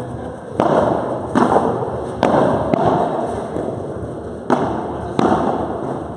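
Padel ball being hit back and forth with rackets during a rally: about six sharp knocks a second or so apart, each ringing on in the echo of a large hall.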